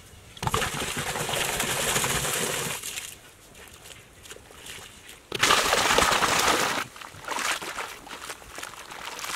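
Water poured from a pot into a hollow in a heap of dry cement-and-sand mix, splashing and sloshing in two pours: a longer one starting just under half a second in, and a shorter one a little past the middle.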